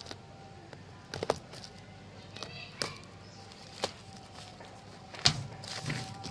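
A taped, plastic-wrapped parcel being cut and pulled open by hand: scattered sharp snaps and crackles of packing tape and plastic wrap, a second or so apart, coming faster near the end.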